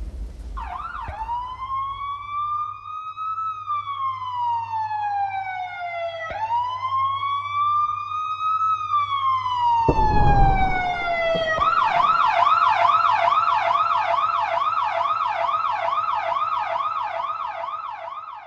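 Emergency-vehicle siren: two slow rising-and-falling wails, then a fast yelp from about twelve seconds in until it cuts off. A faint steady low hum runs underneath, and a brief low rumble comes about ten seconds in.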